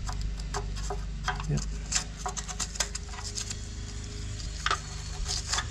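A metal paint can opener scraping and picking foam insulation out of the anode-rod port on top of an electric water heater: irregular sharp scratches and clicks, over a steady low hum.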